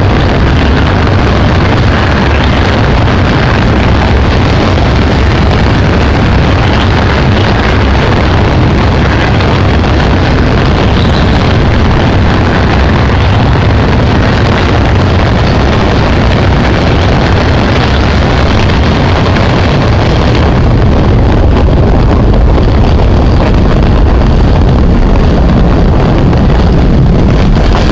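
Passenger train running at speed across a steel truss railway bridge: a loud, steady rumble and clatter of wheels on rails, with wind buffeting the microphone. About twenty seconds in the higher clatter falls away as the train comes off the steel spans, leaving a deeper rumble and wind.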